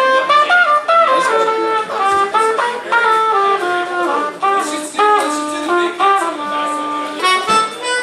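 Trumpet and a reed wind instrument playing a melodic line together, unaccompanied, in a string of held notes that change pitch every half second or so.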